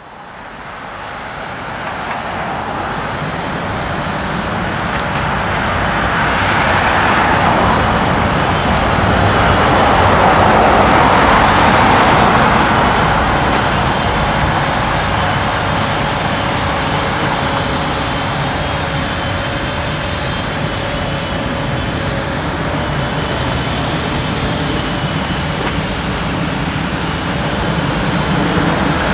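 City avenue traffic: a steady rush of car tyres and engines that fades in and swells as vehicles pass, loudest about ten seconds in.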